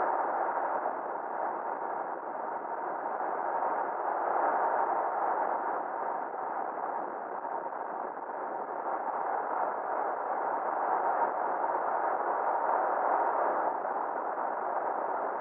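Steady, muffled rush of road and wind noise from a Ford F-350 pickup driving along the highway, with a faint steady whine.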